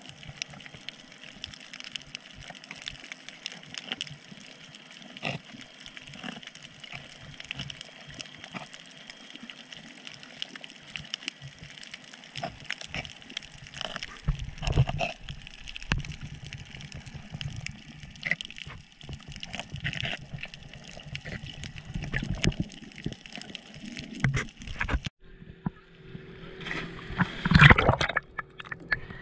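Water sound from a snorkeler's GoPro in its waterproof housing: a steady wash dotted with many small clicks and crackles, with gurgling and sloshing. Near the end the sound changes abruptly and duller, and a loud splash stands out.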